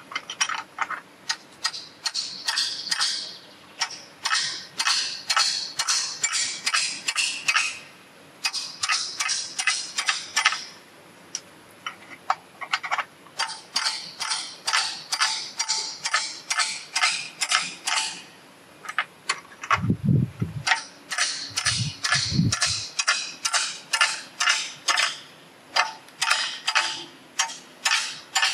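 Claw hammer striking steel wedges into a steel strainer clamp, the wedges locking woven wire netting between the clamp's two plates. The hammer blows come in quick runs of a few a second with short pauses between the runs.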